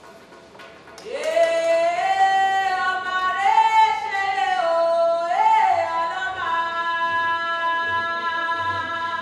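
A woman's solo voice singing a slow melody, starting about a second in, with long held notes that slide between pitches.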